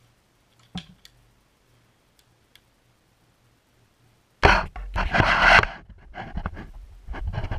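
Camera being handled: loud rubbing and scraping on the microphone starting about halfway through, in uneven surges, after a faint click about a second in.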